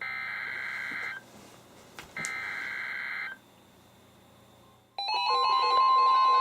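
NOAA Weather Radio SAME digital header sent as warbling data bursts about a second long, two of them a second apart. About five seconds in, the steady 1050 Hz attention tone starts, with pulsing alarm beeps from the weather radios layered over it, signalling an incoming alert.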